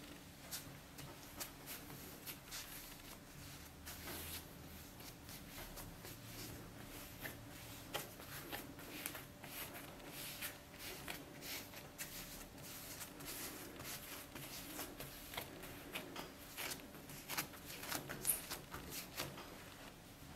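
Hands pressing and patting yeast dough flat on a floured wooden table: a run of soft, irregular taps and pats.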